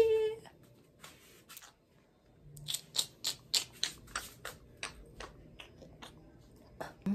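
Handling noise from a phone being moved and gripped: an irregular run of short, sharp clicks and taps, about four a second, starting a couple of seconds in.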